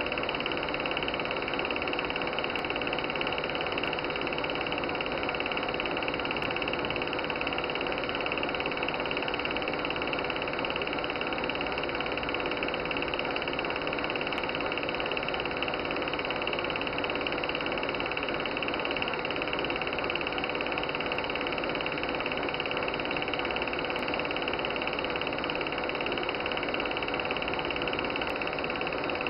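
Super-8 film projector running steadily: an unchanging mechanical running noise with a constant tone under it.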